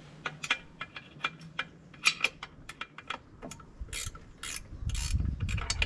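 A hand tool working out the last bolt holding an outboard's lower unit: quick irregular metallic clicks with a few longer scraping strokes about four to five seconds in, and no motor running.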